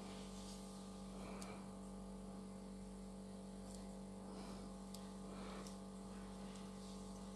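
Quiet room tone with a steady electrical hum, and a few faint small clicks as the metal bottle cap is handled between the fingers.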